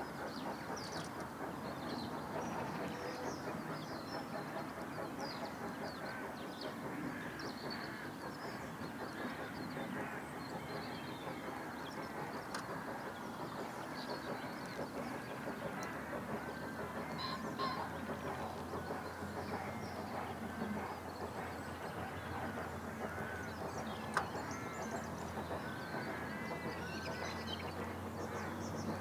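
Birds calling and chirping over a dense, steady background din, with a low steady hum joining about halfway through.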